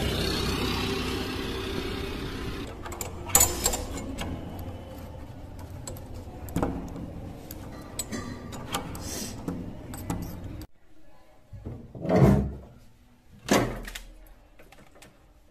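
Steady traffic noise fading, then scattered clicks and rattles of keys working a door lock. After that, two louder knocks as a cupboard door is pulled open.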